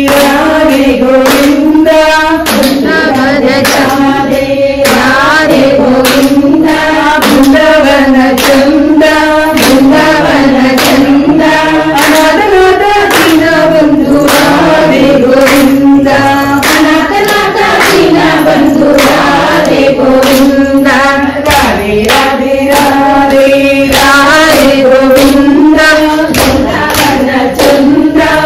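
Group of voices singing a devotional kunita bhajane (dance bhajan) together, accompanied by a steady rhythm of hand claps.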